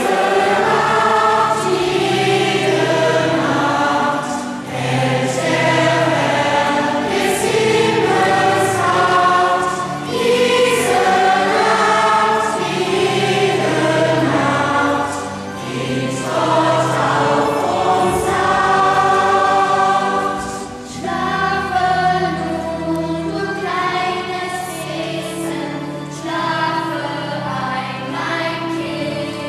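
Mixed choir of children and adults singing a song in phrases of a few seconds, over steady low accompanying notes.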